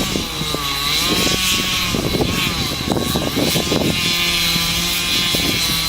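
An engine running steadily, its pitch dipping and rising several times, with a steady high whine and some scattered knocks.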